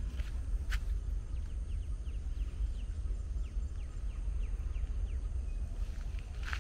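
Outdoor park ambience while walking: a steady low rumble with a few sharp footstep-like clicks. About a second and a half in comes a run of short, high, falling chirps lasting a few seconds, typical of a small bird or insect.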